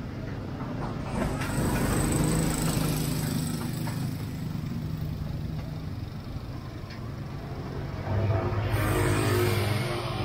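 Motor vehicles driving past on a street, engines running: one passes about a second in and another near the end.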